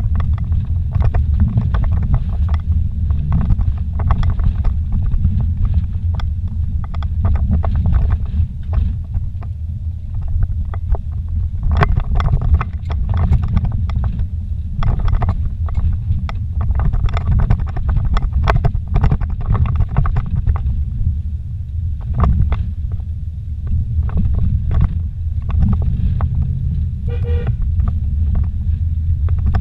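Vehicle cabin noise on a rough dirt road: a steady low rumble of engine and tyres, broken by frequent short knocks and rattles as the vehicle jolts over the bumps.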